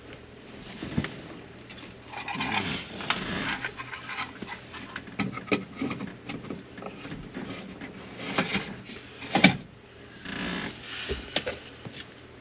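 Heavy panting breaths, several in a row, with a few sharp clicks and knocks from hand work; the loudest knock comes near the end.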